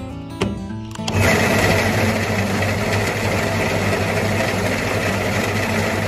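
Electric feed auger starting about a second in and running steadily with a low hum, oats pouring through it into a plastic bucket.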